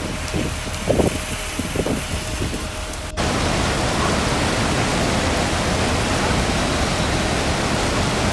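Steady rain noise for about three seconds. Then an abrupt cut to the louder, even rush of a swollen river in flood, brown floodwater racing past.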